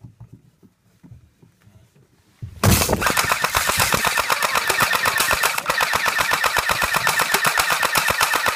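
Airsoft gun firing full auto: one long continuous burst of rapid shots that starts about two and a half seconds in, with faint handling rustle before it.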